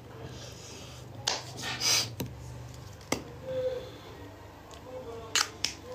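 Hand-handling noises from a small container: a handful of sharp clicks and short scuffs, with a longer rustle about two seconds in, over a faint low hum.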